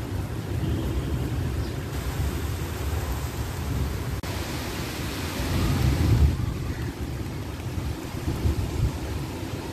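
Heavy rain falling on pavement and parked cars, with wind rumbling on the microphone. The rain swells louder for a couple of seconds around the middle.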